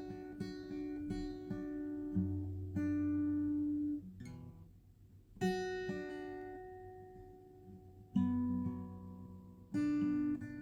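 Background music on acoustic guitar: picked notes in a steady rhythm, then sustained ringing chords. It dies away about four seconds in, and fresh chords come in near the middle and again near the end.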